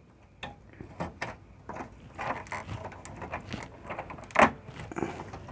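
Irregular clicks, rustles and knocks of hands refitting a circuit board and its wires inside a metal home-inverter (IPS) cabinet, with one louder knock about four and a half seconds in.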